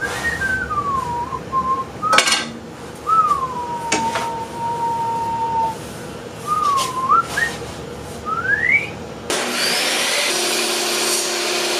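A person whistling a tune in short gliding phrases, with a few sharp knocks of thin wooden strips being handled. About nine seconds in, a table saw starts running steadily, a steady tone joining under it a second later as the wood strip is fed into the blade.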